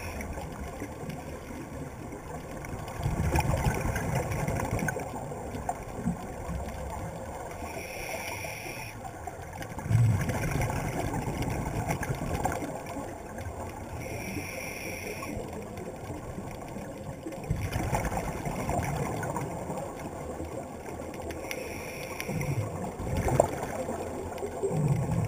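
Scuba breathing heard underwater: a regulator hiss on each inhale and a low bubbling rumble on each exhale, repeating about every seven seconds, three or four breaths in all.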